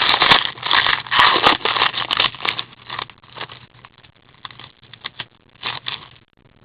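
Trading cards and their pack wrapper being handled: crinkling and scraping of card stock and wrapper, loudest in the first two and a half seconds, then fainter rustling with a couple of sharper bursts near the end.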